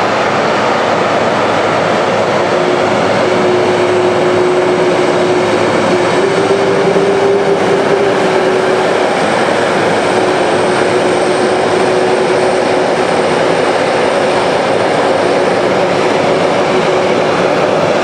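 Boeing 747-400 freighter's four jet engines running at taxi power as the jumbo rolls past. It is a steady loud roar, and a steady droning tone joins in a few seconds in.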